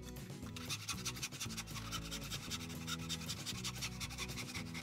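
Small backsaw cutting across a softwood board with quick, rasping strokes, starting about half a second in, over background music.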